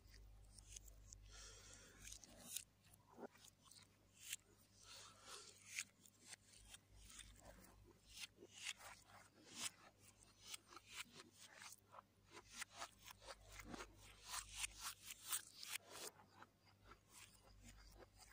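Close-miked eating sounds: sticky clicks and squelches of fingers working through fried rice and chickpea curry, with wet chewing. The clicks come thick and irregular, densest about halfway through.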